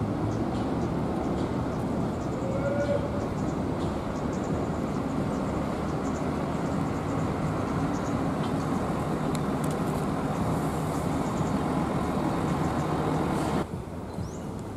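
Large coach's diesel engine running as the bus pulls through and turns past at low speed, a steady low drone. It drops off abruptly about a second before the end.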